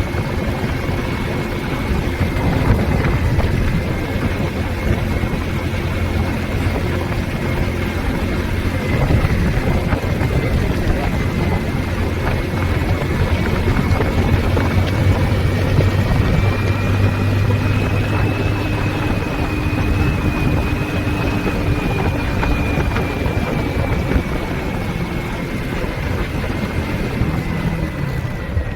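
A motor vehicle running on the road: steady engine and road noise with a low hum that swells and fades, and a thin high tone that holds steady throughout.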